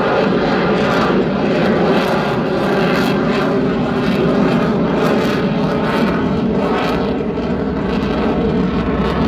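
Loud, steady jet noise from a US Air Force F-22 Raptor's twin turbofan engines as the fighter flies overhead.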